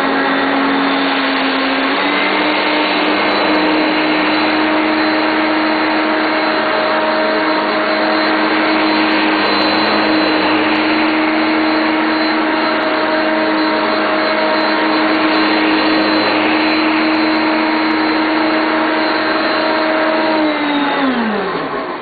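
Hoover Concept One upright vacuum cleaner's 6.4-amp motor running with a steady whine, pushed back and forth over carpet to pick up scattered rice, with faint small ticks throughout. Its pitch steps up about two seconds in, dips briefly now and then, and falls away as the motor is switched off near the end.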